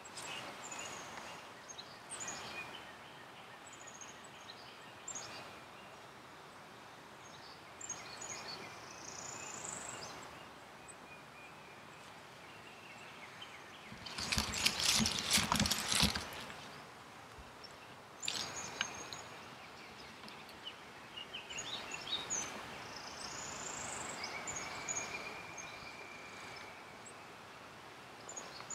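Songbirds chirping and trilling over a steady rural background. About halfway through, a loud burst of close rustling and scraping lasts about two seconds.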